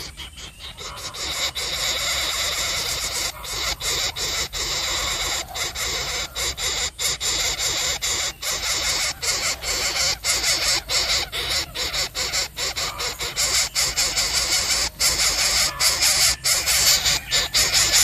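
Coucal (burung bubut) giving a harsh, hissing rasp, chopped by many brief breaks.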